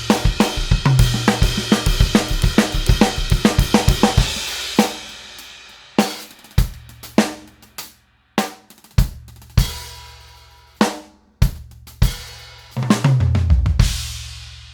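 Drum kit with Meinl Byzance cymbals being played: a busy groove with ringing cymbals for about five seconds, then single accented hits spaced out and left to ring, then a quick fill near the end whose last hit rings out.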